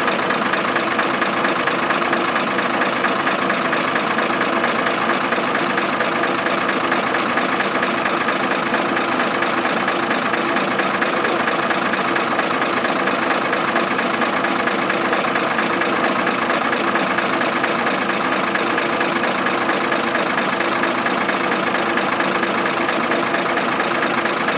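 An engine idling steadily, a constant even drone with no change in speed.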